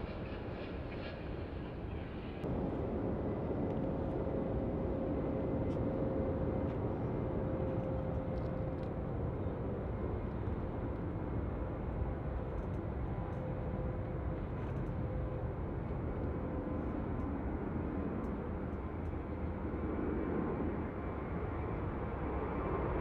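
Departing jet airliner's engines running, a steady rushing drone with a faint steady whine. About two and a half seconds in the sound jumps abruptly louder and stays so.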